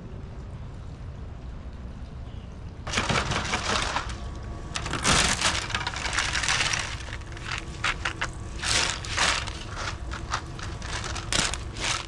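Wheat grain poured from a container into a plastic fodder tray, a rushing pour that starts about three seconds in, followed by hands spreading the grain with short crackling rattles against the tray.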